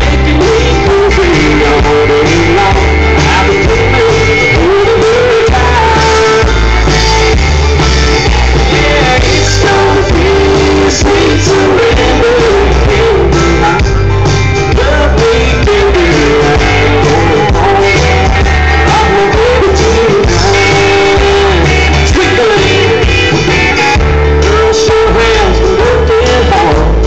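A live band playing an amplified song with a singer, guitars and a steady bass pulse, heard through a large outdoor PA system.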